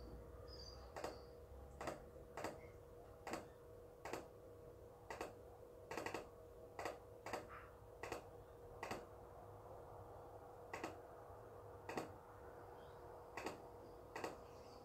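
Faint, sharp clicks of a computer mouse at irregular intervals, some in quick pairs like double-clicks, over a steady low hum.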